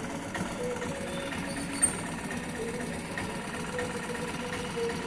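Steady mechanical hum, with one sharp metallic click a little under two seconds in as a small screwdriver works at the screws of a watch's steel back cover.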